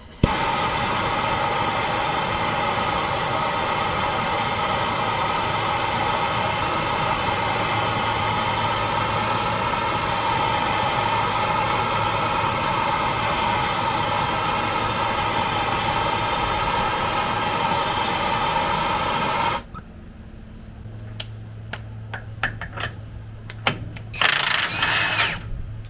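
A power tool running steadily at constant speed, cutting off abruptly with about six seconds left, followed by a few light metal clinks.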